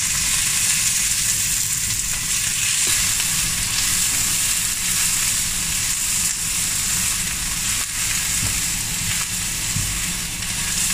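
Chopped onions and bell peppers sizzling in hot oil in a frying pan as they are stirred with a silicone spatula: a steady hiss with an occasional light click.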